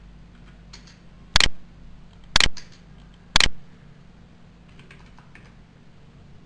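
Computer keyboard keys being pressed: three sharp, loud clacks about a second apart, with lighter taps between them.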